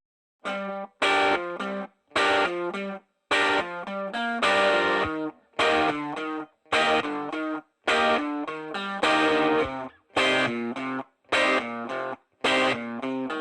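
Background music: a guitar-led track played in short chopped phrases, each cutting off abruptly into a brief silence before the next.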